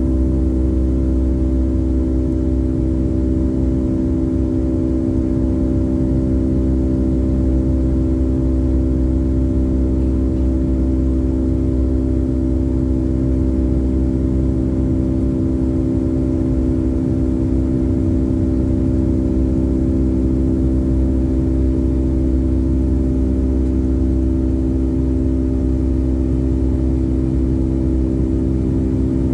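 Boeing 757-200's jet engines running steadily, heard inside the passenger cabin: a loud, constant drone with a low rumble and several steady hums, with no change in pitch or level.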